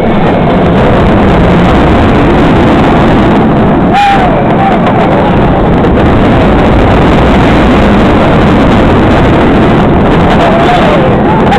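Steady loud rush of wind and track roar from the front row of a B&M inverted roller coaster train running at speed through its inversions.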